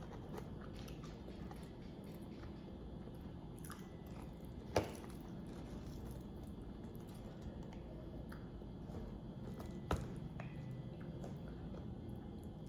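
A person chewing and biting fried chicken close to the microphone, with small moist crunches and clicks, and two sharp clicks about five and ten seconds in.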